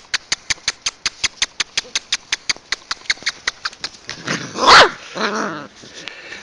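Rapid, even clicking, about seven clicks a second, then a single loud dog bark that falls in pitch, followed by a shorter, lower call.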